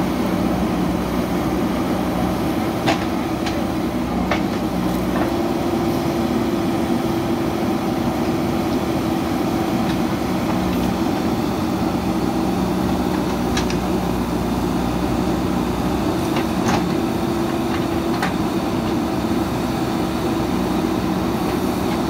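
Diesel engines of several JCB 3DX backhoe loaders running steadily under load while their backhoes dig, with a few short sharp knocks scattered through.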